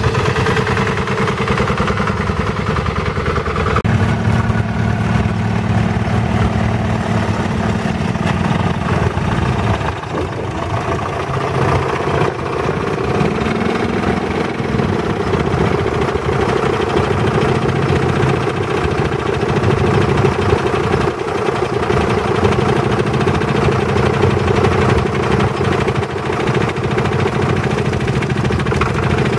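Several vintage tractor engines idling and running at low speed. The engine speed steps up about four seconds in, and one engine revs up and settles back around the middle.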